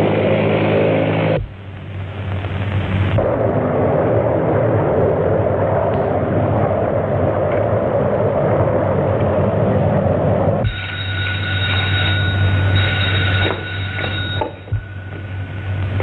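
Biplane's engine and propeller running; the sound cuts off abruptly about a second in, then comes back as a steady engine drone. About ten seconds in, a telephone bell starts ringing and goes on for several seconds.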